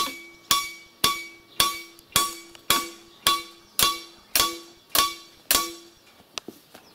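Hammer driving a long nail into a wooden log crossbeam: eleven steady blows, about two a second, each with a short metallic ring. The nail goes in a little with each blow, still a few centimetres from flush.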